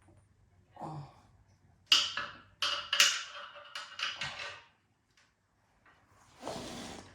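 Small metal hardware (washers, a lock nut and a nut) clinking and knocking as it is handled and fitted: a run of sharp taps, some with a brief metallic ring, followed by a short scraping rustle near the end.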